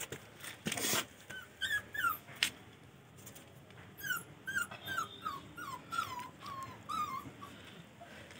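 A puppy whimpering: short, high whines that each fall in pitch, a pair early on, then a run of about seven at roughly two a second from about four seconds in. A few sharp knocks or rustles come in the first two and a half seconds.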